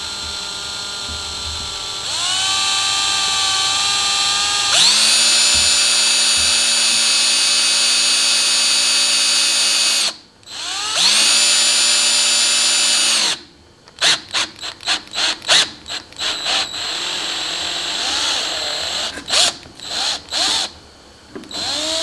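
Cordless drill with a 1/2-inch twist bit boring through the wall of 1.5-inch schedule 40 PVC pipe. The motor whine steps up in speed twice in the first five seconds, then runs steadily. It stops briefly about ten seconds in and runs again. Over the last eight seconds it comes in many short trigger bursts.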